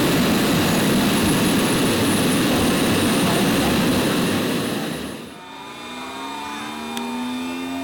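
Model aircraft engines on the flying field: a loud, steady jet-like rush that drops away suddenly about five seconds in, leaving quieter engine tones gliding slowly up and down.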